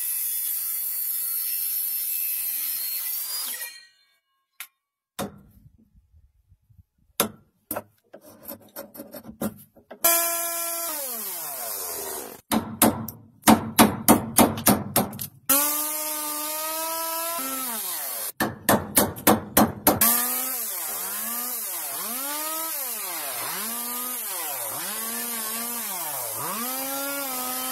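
Woodworking power tool and hand blows on timber. A steady noisy run stops after about four seconds, then come scattered sharp knocks. After that, bursts of an electric tool motor alternate with quick runs of knocks. In the last part the motor's pitch sags and recovers about once a second, as the tool is loaded into the wood stroke after stroke.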